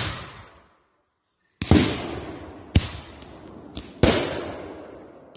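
Consumer fireworks going off: a sharp bang right at the start, then three more about a second apart from about a second and a half in, each fading in a long echo.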